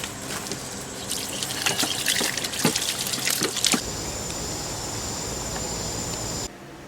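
Water trickling and splashing, as from a tap, for a few seconds, then a steady hiss with a thin high tone that cuts off suddenly near the end.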